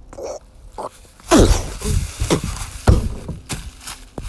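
A struggle: a run of loud thumps mixed with short cries that fall in pitch, starting about a second and a half in.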